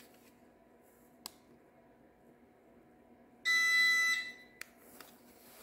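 A couple of sharp clicks from a garage door remote being pressed, then about three and a half seconds in a single electronic beep of about two-thirds of a second from the Linear LDCO850 garage door opener, which is in learn mode while the remote is programmed to it.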